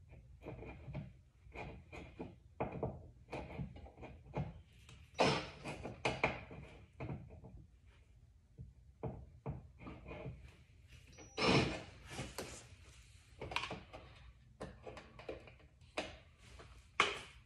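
Irregular knocks, clunks and rattles of hand work on a car's stripped door pillar and rocker panel, with a few louder thumps among them.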